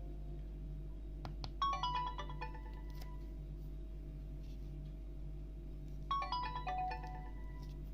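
Alcatel OneTouch 2005D phone tone played through a Samsung Ch@t 357's speaker: a short run of quick notes falling in pitch, heard twice about four and a half seconds apart, over a steady low hum. Two brief clicks come just before the first run.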